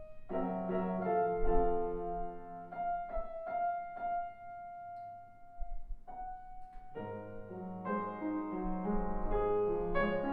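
Longato grand piano played solo in a classical piece: sustained chords under a held melody note. The texture thins to a single held note about six seconds in, then fuller chords return.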